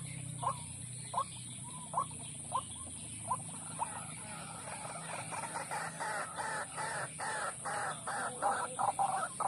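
White-breasted waterhens (ruak-ruak) calling: single croaking notes every half second or so, spacing out and fading over the first few seconds, then from about four seconds in a faster, louder run of repeated calls that builds toward the end.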